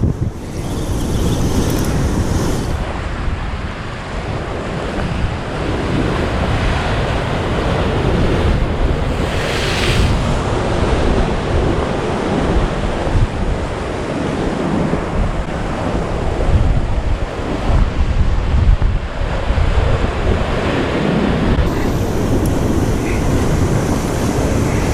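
Ocean surf washing against rocks, with wind buffeting the microphone in a steady low rumble. There is one brighter rush of water about ten seconds in.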